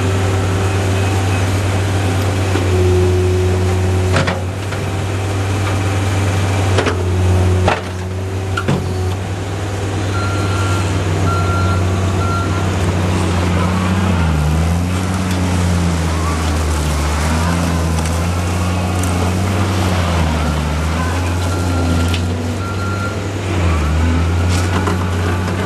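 John Deere 329D compact track loader's diesel engine running, its pitch sagging and recovering a few times as it takes load, with a few sharp knocks in the first nine seconds.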